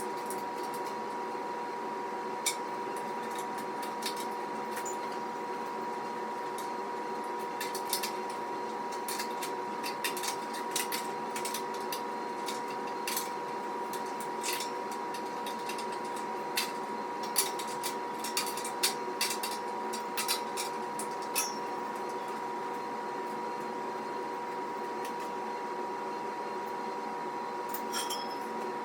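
Metal parts and tools of a steel squat rack clinking and clicking during assembly, in scattered light knocks that come thickest in the middle stretch, over a steady two-tone hum.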